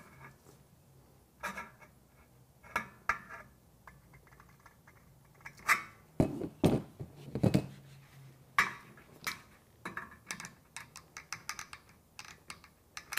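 Aviation snips cutting a painted steel Z closure: irregular sharp metallic snips and clicks as the blades close on the sheet metal, with a few louder knocks about halfway through and a quicker run of small snips near the end.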